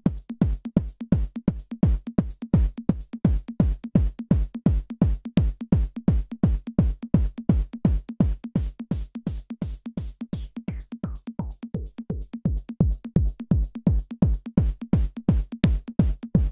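Electronic music: a fast, steady drum-machine beat of kick-drum thumps that drop in pitch, each with a sharp click on top, and no melody.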